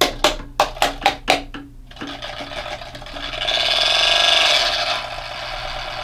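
Quick clicking and tapping on a small ceramic space heater, then its little fan motor whirs for about three seconds, swelling and fading away. The heater is damaged: it overheated while lying on its back and began to seize and smoke.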